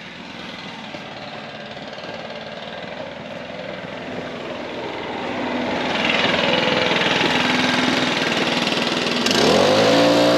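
A motor vehicle: engine and road noise swell up steadily, then near the end an engine revs up, its pitch rising and then holding.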